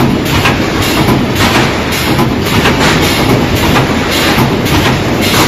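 Automatic wire mesh spot welding machine running: a rhythmic clacking about twice a second over a loud, steady mechanical hum as it works through a wire mesh panel.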